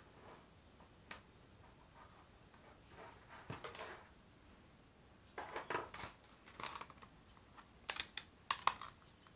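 Hands handling a braided fibre optic cable and a clear plastic blister pack: scattered rustling, crinkling and clicking in short bursts, with the sharpest crackles near the end as the plastic pack is handled.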